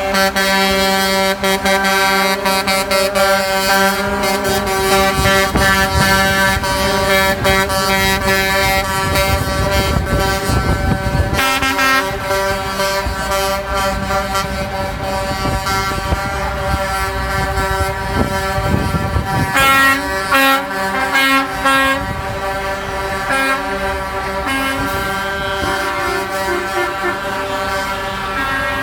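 Air horns of several cement mixer trucks sounding together in long, overlapping held blasts at different pitches, with a run of short toots about twenty seconds in. Diesel engine rumble swells underneath as trucks pass.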